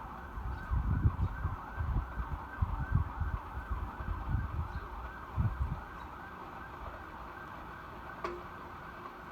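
A siren-like electronic tone warbling rapidly up and down, about three sweeps a second, with irregular low thumps and bumps through the first two-thirds.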